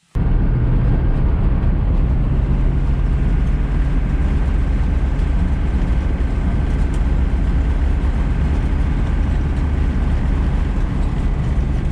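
Steady engine drone and tyre noise heard inside the cabin of an older off-road vehicle driving along a gravel track.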